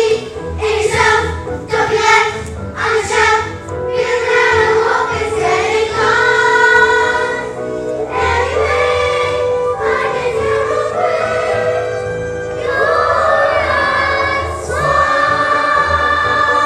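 A children's stage chorus singing a musical-theatre number over backing music, settling into a long held chord near the end.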